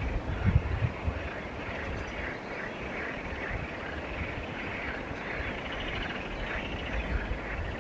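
Riverside outdoor ambience: a steady hiss with a repeated high chirping about twice a second, and low rumbling bumps in the first second.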